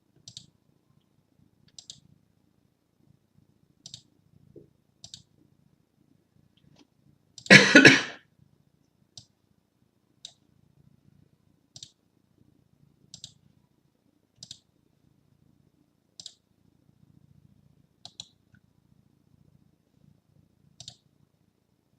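Single computer mouse clicks spaced a second or two apart, over a faint low hum. About seven and a half seconds in there is one short, loud noise.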